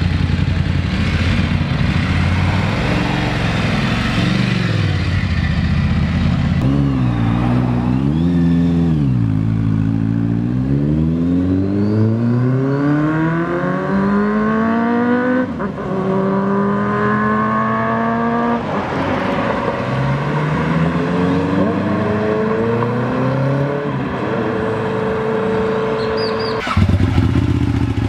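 Large-displacement motorcycles revving and pulling away. The engine pitch climbs, drops back and climbs again as the riders shift up through the gears. Near the end it cuts abruptly to a lower, steady engine running.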